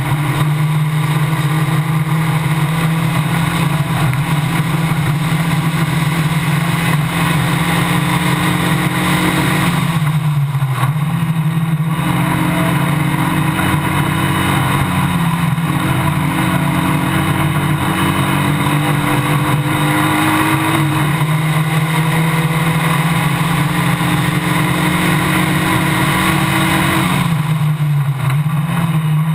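Formula Basic single-seater race car's engine heard onboard, running hard at high revs at a mostly steady pitch, easing off briefly about ten seconds in and again near the end before picking back up, with wind and road rush.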